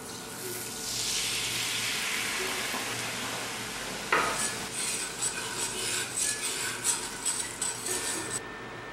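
A white sauce of milk, butter and cream cheese sizzling in a hot skillet as a spatula stirs it. Just after four seconds there is a sharp knock. After that comes a quick run of scrapes as the spatula drags the thickened sauce across the pan bottom.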